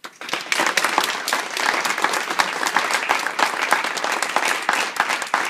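A small audience applauding, the clapping breaking out suddenly and going on dense and steady.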